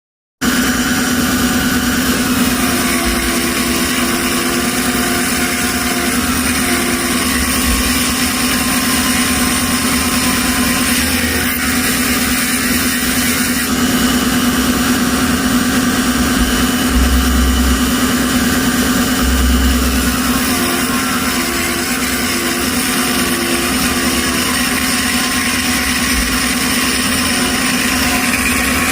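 VM441 mini lathe running steadily, its motor holding a constant hum over a dense hiss while the tool turns stainless steel. A couple of low thuds come in past the halfway point.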